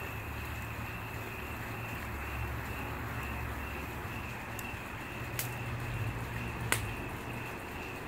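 Wood fire burning in an outdoor fireplace: a steady hiss with a few sharp pops of crackling wood, the loudest nearly seven seconds in.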